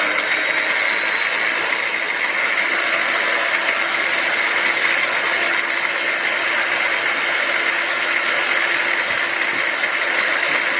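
Electric rotary hammer drill running steadily at constant speed, its motor giving an even whine.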